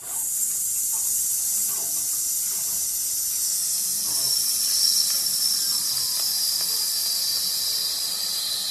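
Steady high-pitched hiss that starts and stops abruptly, with a faint tone inside it sinking slowly in pitch.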